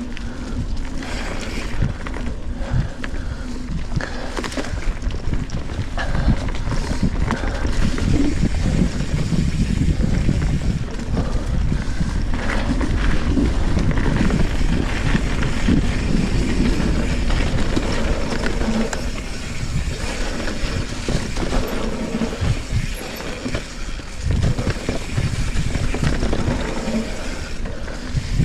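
Trek Fuel EX 7 full-suspension mountain bike ridden down a damp dirt trail: tyres rumbling over the ground and the bike knocking and rattling over bumps, with wind rumbling on the microphone.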